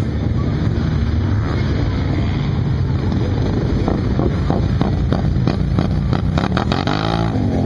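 A four-wheeler (ATV) engine runs steadily as it pushes through deep water. Near the end its pitch rises and falls as the throttle is worked.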